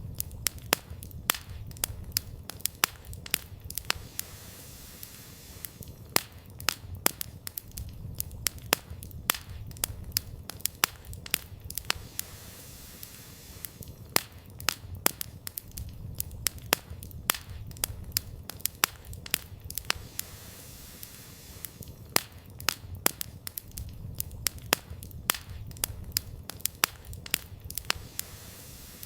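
Wood campfire crackling, with frequent sharp irregular pops and snaps of burning firewood over a low rumble that swells and fades.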